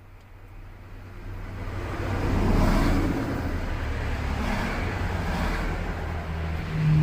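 A motor vehicle's low rumble, growing louder over the first two or three seconds and then holding steady.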